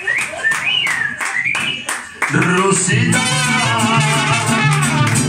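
Mariachi music: singing with sliding pitch over a steady strummed beat, then a little over two seconds in the full band comes in louder with a deep, walking bass line under the melody instruments.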